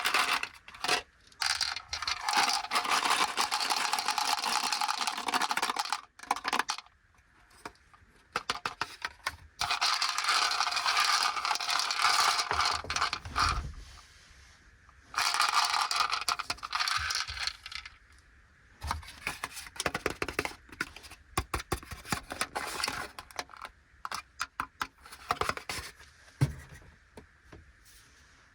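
Plastic candy packaging crinkling and rustling in long stretches, with many small sharp clicks and rattles as Fujiya Anpanman Korokoro ball chocolates are handled and tipped out.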